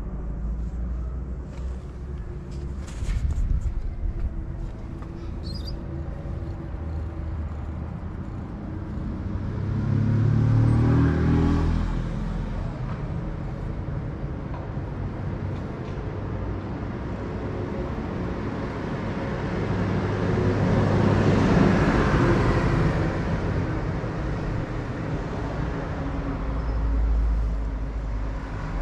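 Motor vehicles passing on a street under a steady low traffic rumble, two passes swelling and fading, the first about ten seconds in and the second about twenty seconds in.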